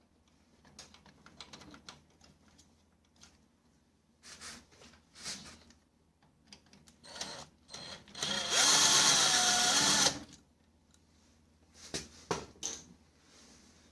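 A cordless electric screwdriver runs for about a second and a half, its motor pitch rising and dipping as it drives a screw. Scattered clicks and knocks of parts and tools being handled come before and after it.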